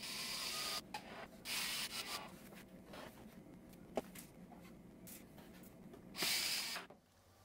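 Festool cordless drill driving screws into a pine-and-plywood form in three short bursts, with a single knock about four seconds in.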